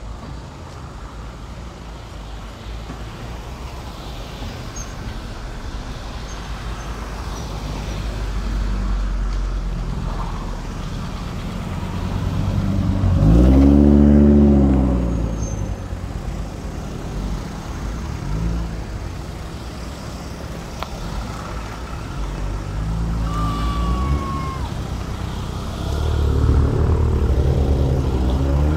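Several cars driving past one after another at low speed. About halfway through, the loudest, an Audi S2 coupe's turbocharged five-cylinder engine, passes close by, its pitch rising and then falling, a sound the owner of the footage calls incredible.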